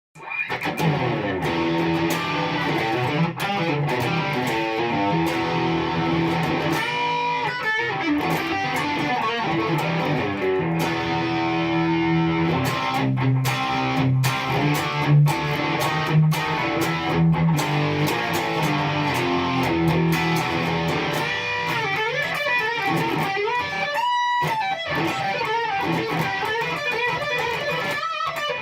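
Electric guitar through a Yamaha THR100HD amp's lead channel and its 2x12 cabinet, playing an improvised lead with sustained overdriven notes and quick runs.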